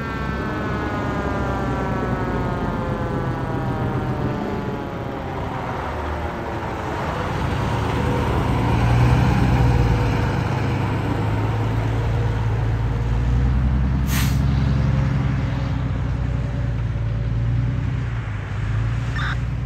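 Fire engine going past: its siren winds down, falling slowly in pitch over the first several seconds, while the truck's diesel engine rumbles loudest as it passes broadside. About two-thirds of the way through there is one short, sharp air hiss from the air brakes.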